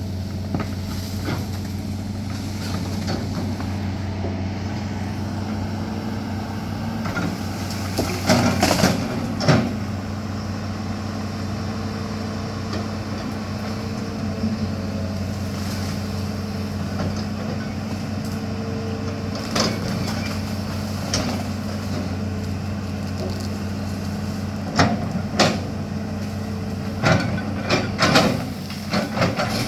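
Large excavator's diesel engine running steadily, with loud cracks and crashes of breaking trees and branches as forest is pushed over, a cluster about eight seconds in, a couple more around twenty seconds, and several in quick succession near the end.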